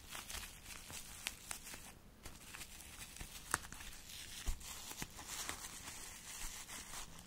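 Plastic packaging crinkling and tearing as a new phone is unwrapped by hand, with scattered sharp crackles.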